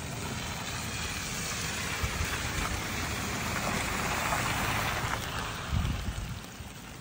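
A car driving past through rainwater running across the road, its tyres hissing and splashing. The spray noise swells to its loudest about four seconds in, then fades, over the steady sound of rain.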